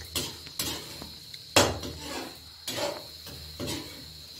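Okra being stirred in a metal pan over a wood-fired clay stove (chulha): a utensil scrapes and knocks against the pan several times, the loudest knock about one and a half seconds in.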